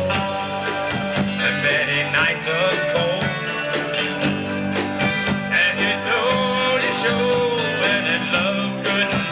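Country band playing live with electric guitars, bass guitar and a drum kit, in a steady beat.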